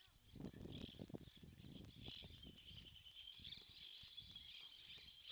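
Faint, steady high insect chirring, with irregular low rumbling noise underneath.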